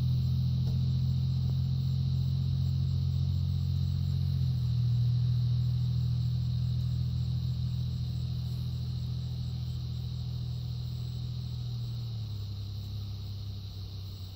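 A low, steady engine-like hum that drops slightly in pitch about four seconds in and again near the end, slowly fading.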